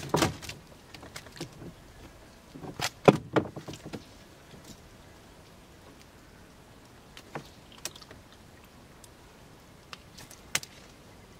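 A catfish being landed into a small boat: bursts of splashing and knocking against the hull in the first few seconds, loudest about three seconds in, then a few single knocks as the fish is handled.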